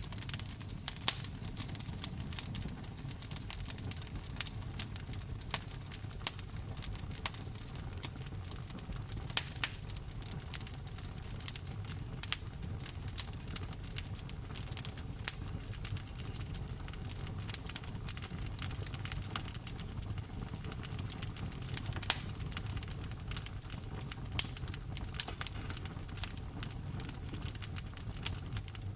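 Wood fire crackling: frequent sharp pops and snaps of burning logs, a few louder than the rest, over a steady low rumble of the flames.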